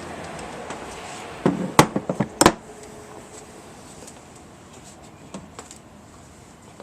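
A quick series of sharp knocks and clunks about a second and a half in, the last of them the loudest, followed by a few faint ticks.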